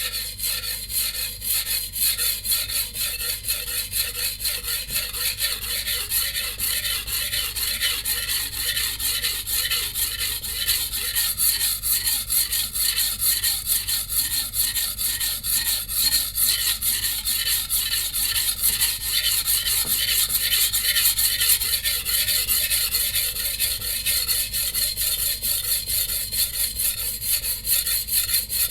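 A Shun VG10 steel cleaver blade rubbed back and forth in quick, even strokes on a coarse 180-grit Suehiro Debado whetstone, a gritty scraping rasp as the stone grinds out chips along the edge.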